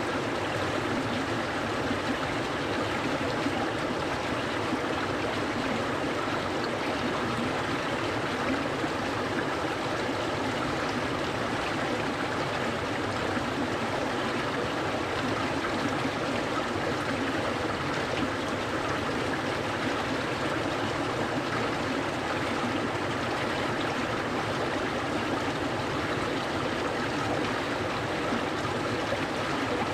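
A clear stream flowing with a steady, even rush of water.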